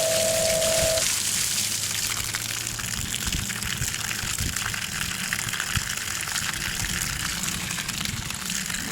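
Water gushing from a sand filter's waste line while the pool pump runs in backwash mode, over a low pump hum. A steady tone stops about a second in.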